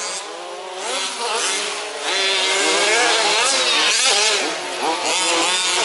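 Several 1/5th-scale RC off-road trucks' small two-stroke petrol engines revving, their pitches rising and falling against each other as they race, getting louder about two seconds in.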